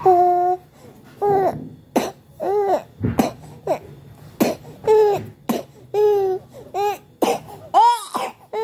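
A young child sick with a cough, coughing again and again in short coughs, many of them with a high-pitched voiced sound.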